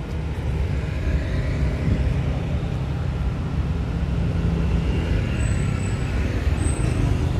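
Steady low rumble of road traffic, with a few short high-pitched chirps near the end.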